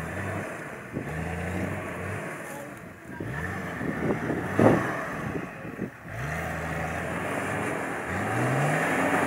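A Toyota off-road truck's engine revving in repeated surges, about five times, each rising in pitch as the truck works across rough ground. A short, loud knock about four and a half seconds in.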